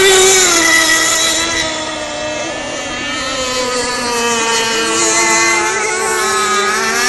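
Two radio-controlled racing boats running at speed, their motors giving a steady, buzzing engine note. The pitch dips about half a second in, and the sound grows quieter for a couple of seconds before it rises and swells again around five seconds in.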